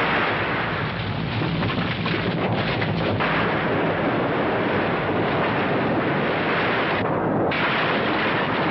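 Dramatised earthquake sound effect: a loud, continuous rumble, with a run of crashes over the first three seconds.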